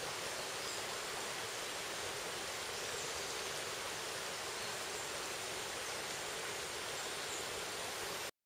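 Steady outdoor forest ambience: an even rushing hiss with no distinct calls or events. It cuts off abruptly into silence near the end.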